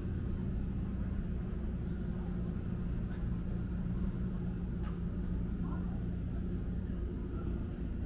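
Steady low rumble of road traffic on a city street, with a faint steady hum and a few light clicks.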